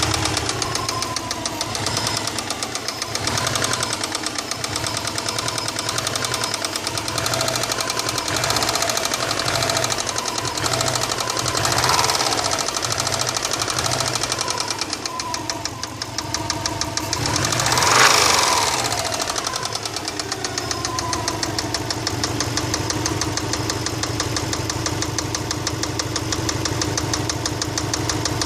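Subaru EJ206 flat-four engine running with a rapid, even knock. It is blipped gently several times, revved clearly past the middle, then settles back to idle.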